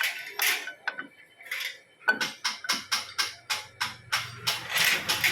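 Background music: a percussion beat that settles into an even rhythm of about three strokes a second about two seconds in, joined by a low sustained note shortly after.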